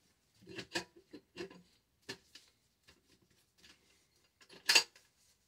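Remington 870 Tac-14 shotgun barrel being slid back into the receiver: a few light metal clicks and rubs, then one sharp metallic clack near the end as the barrel goes into its groove.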